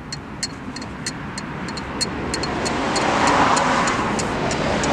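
A passing road vehicle, its noise swelling over the first few seconds and then holding, with light ticking throughout.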